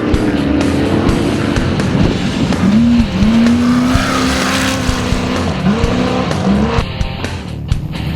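Off-road race vehicle's engine running hard at high revs, its note dipping and climbing again twice as it shifts, over rock music. Near the end the engine falls away and the music carries on.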